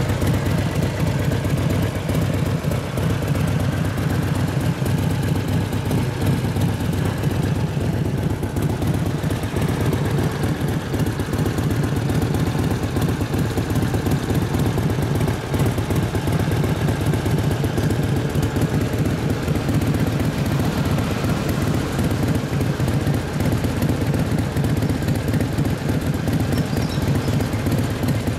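Indian Chief Classic's 1720cc V-twin engine idling steadily, an even, unbroken run of firing pulses.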